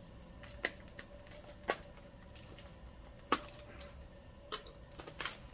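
A sealed sample bag of green coffee being cut open: about half a dozen irregular sharp clicks and snips, over a faint steady hum.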